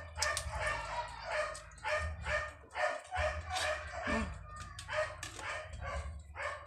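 A dog barking rapidly and without pause, about three barks a second, over a low steady hum.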